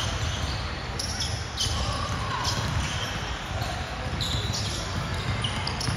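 A basketball being dribbled on a gym floor, its bounces echoing in a large hall over a steady background din.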